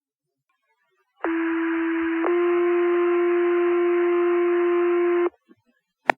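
Two-tone sequential fire pager alert over a dispatch radio channel: one steady tone for about a second, then a slightly higher tone held for about three seconds, the tone pair that sets off the volunteer firefighters' pagers. A short radio click follows near the end.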